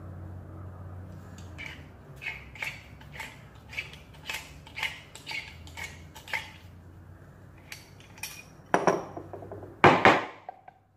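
Metal clicking about twice a second as the threaded spindle of an old chrome sink faucet is turned in the faucet body by hand, then two loud metal clanks with a short ring near the end as the faucet parts are put down on the table.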